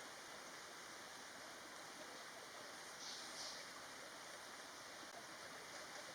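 Faint, steady rush of a forest stream. Two short high chirps come close together about three seconds in.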